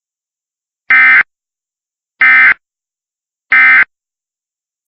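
EAS digital data bursts: three identical short, harsh buzzy blips about 1.3 seconds apart. This is the SAME end-of-message code that marks the close of an emergency alert.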